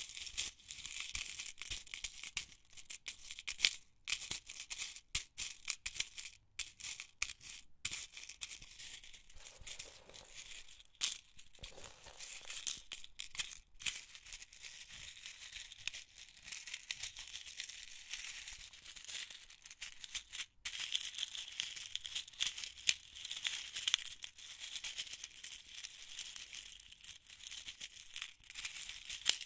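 Office pins rattling and shifting inside their box, a dense stream of tiny clicks and jingles that cuts out briefly several times.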